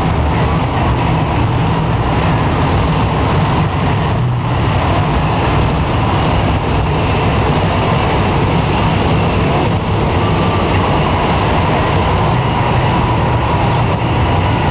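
Monster truck's supercharged V8 engine running with a loud, steady low rumble.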